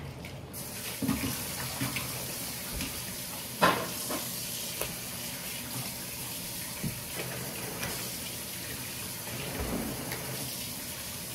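Kitchen tap turned on, water running steadily into the sink. A sharp knock about three and a half seconds in and a few lighter clicks, like things handled in the sink.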